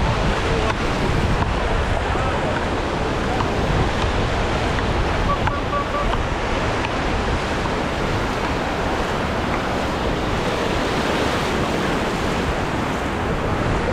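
Waves washing onto a sandy beach, with wind buffeting the microphone.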